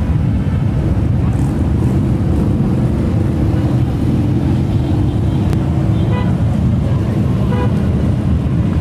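Steady low rumble of a stream of motorcycles riding past, with two short higher tones about six and seven and a half seconds in.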